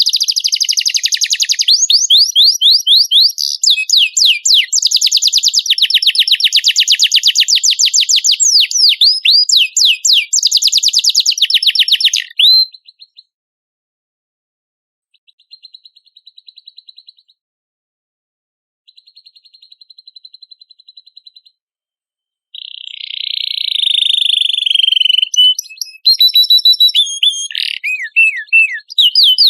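Domestic canary singing hard in fast, rolling trills of rapidly repeated notes. The trills stop abruptly about twelve seconds in. Two faint short trills and then a harsh buzzy phrase follow, and the rapid trilling starts again near the end.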